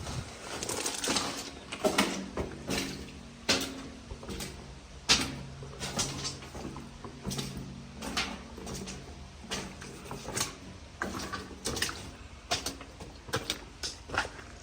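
A steady low machine hum, likely the concrete pump's engine running, under frequent irregular knocks and clatters.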